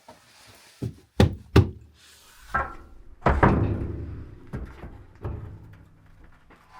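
A short series of sharp knocks and thuds, three close together in the first two seconds, then a heavier thud about three seconds in that dies away with a lingering ring.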